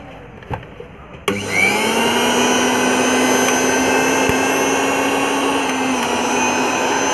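Mixer grinder's electric motor switched on about a second in, spinning up quickly and then running at a steady speed with an even whine. It is a test run after a new armature was fitted to cure sparking, and the motor runs properly.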